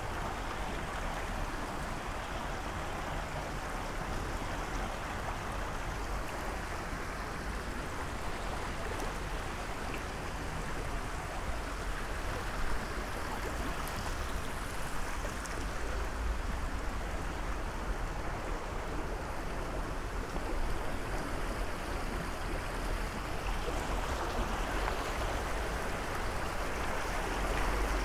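Steady rush of flowing river water, a little louder near the end, with a low rumble beneath it.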